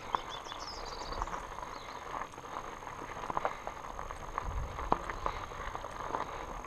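Fat bike rolling over a stony dirt trail: big tyres crunching on gravel and the bike frame and suspension fork rattling with irregular clicks and knocks, with wind buffeting the microphone in low rumbles now and then.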